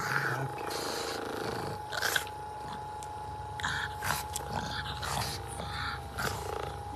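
Percussion massage gun running with a steady whine while a pug noses and mouths at its round head, making about half a dozen short noises.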